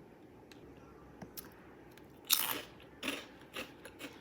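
A crunchy chip bitten with one loud crunch a little past halfway, followed by a few softer crunches as it is chewed close to the microphone.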